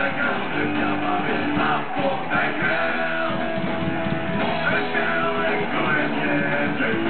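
Live rock band playing: distorted electric guitars, bass guitar and drums, with a singer's vocals over them.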